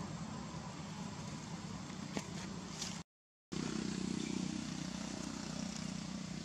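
Steady outdoor background noise with a low hum, with a few faint ticks, broken a little after three seconds by a half-second gap of silence at an edit cut.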